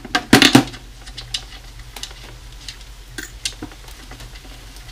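Metal drum hardware clattering as lugs and screws are taken off a tom shell: a loud burst of clacks about half a second in, then scattered light ticks and scrapes.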